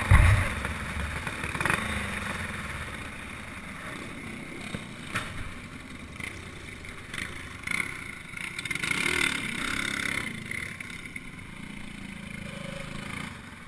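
Single-cylinder clone kart engine running on a dirt oval, heard onboard with rushing noise and scattered knocks from the kart over the dirt. A heavy thump comes right at the start, and the sound is louder at first, then settles lower.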